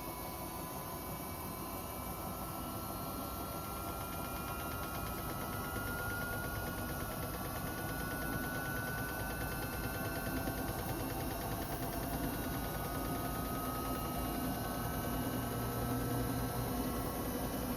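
Samsung Eco Bubble digital inverter washing machine running a test spin: a steady motor hum with a thin whine that slowly rises in pitch while the sound gradually gets louder, as the drum speeds up.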